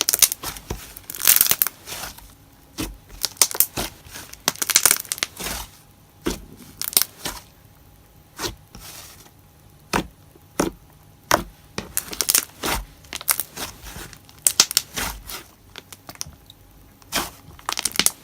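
Glossy slime being played with by hand, giving off irregular sharp pops and crackles of air bubbles bursting, some in quick clusters.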